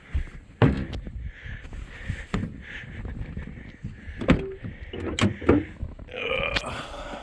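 Scattered knocks and handling noises, then a vehicle door creaking open about six seconds in.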